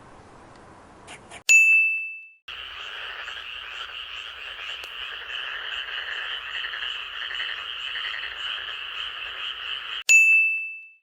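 A chorus of frogs croaking densely for about seven and a half seconds, framed by a bright ding with a ringing decay about a second and a half in and another near the end.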